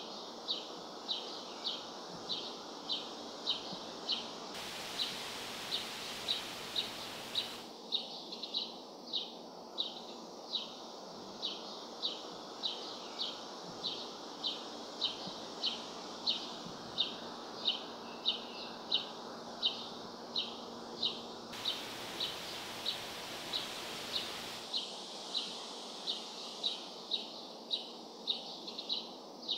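A short, high chip call repeated evenly about twice a second, over steady outdoor background noise.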